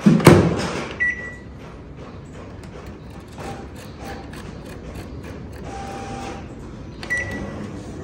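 Samsung microwave oven door shut with a thud, then a short beep as a button is pressed. The setting dial clicks as it is turned, with another beep near the end.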